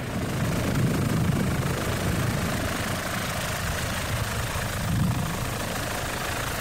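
Helicopter running overhead or aboard: a steady rotor rumble under a wide hiss of engine and air noise.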